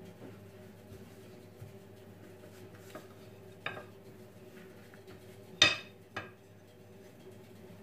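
Long wooden rolling pin knocking against a hard countertop as dough is rolled out: three knocks, the loudest about five and a half seconds in with a short ring, over a steady low hum.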